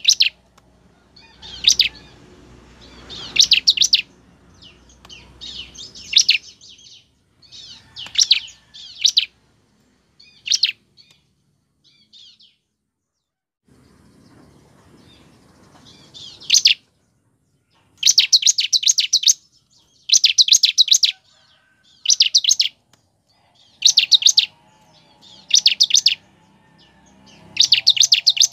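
Bar-winged prinia (ciblek) singing: short bursts of rapid, high, chattering notes about a second long, repeated with brief pauses. After a few seconds' lull in the middle, the phrases come regularly about every two seconds.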